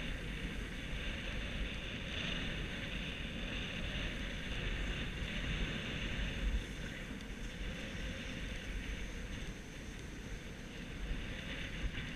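Wind rushing over the microphone during a downhill ski run, a steady low buffeting, with the steady hiss of skis sliding over packed, groomed snow.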